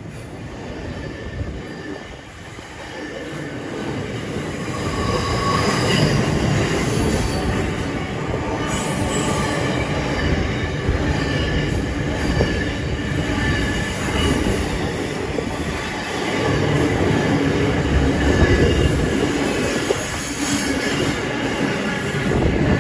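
Intermodal container freight train passing at close range: the wagons roll by with a steady rumble and clatter of wheels, growing louder over the first few seconds. A high-pitched wheel squeal comes and goes.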